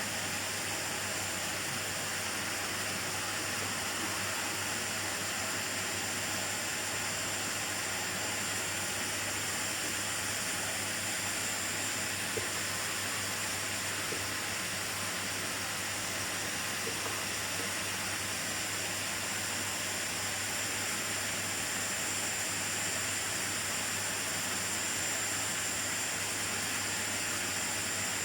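Miele vacuum cleaner running steadily: an even rushing hiss of suction over a low hum, with a thin, constant high whine.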